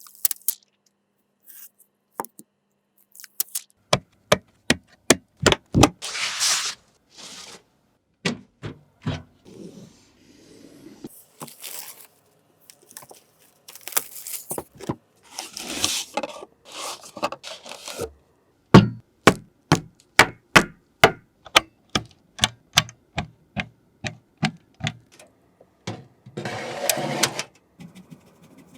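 ASMR tapping, clicking and scraping on hard objects: a long run of sharp taps and clicks, broken by several longer scraping passes of about a second each.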